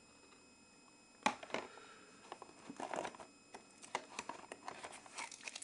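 Cardboard phone packaging being handled: near silence at first, then from about a second in a run of scattered light clicks, taps and rustles of cardboard and plastic parts.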